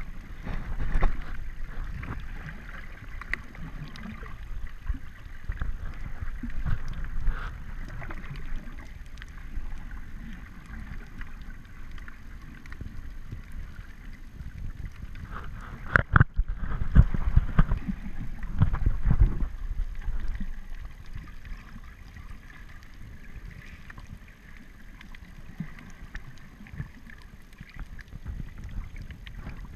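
Muffled water sloshing and rumbling against a camera filming just under the sea surface, swelling and easing, with a sharp knock about halfway through and a few seconds of louder splashing after it.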